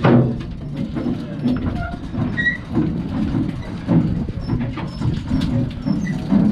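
Low, uneven rumble aboard a fishing boat at anchor, with a sharp knock right at the start as a freshly landed fish hits the deck.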